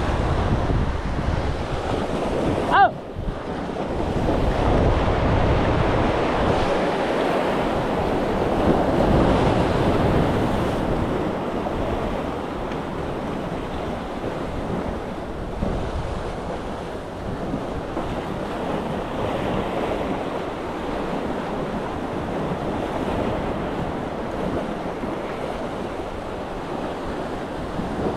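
Sea waves washing and breaking against the concrete blocks of a seawall, with wind buffeting the microphone. A brief sharp sound with a short squeal about three seconds in.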